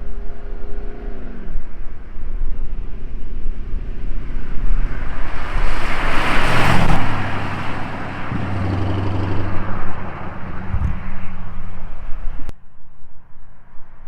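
Hot rod engines driving past. One car comes close, with a rising rush of engine and exhaust that peaks about six to seven seconds in and then fades. Another engine note is strong about nine seconds in, and near the end the sound cuts suddenly to a quieter engine.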